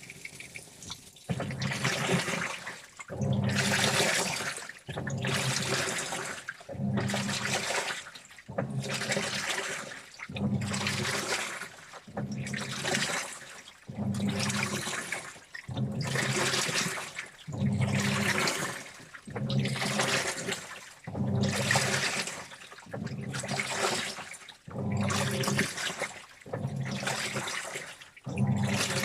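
Washing machine in its wash cycle: the drum turns back and forth, water and clothes sloshing in a regular rhythm of about one swish every two seconds, with the motor's low hum under each stroke. The washing starts about a second in.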